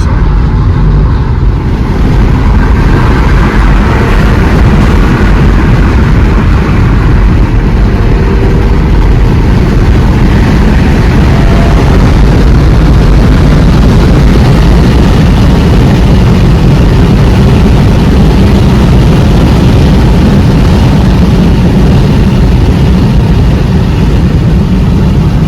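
Car driving: steady engine and road rumble, loud and heavy in the low end.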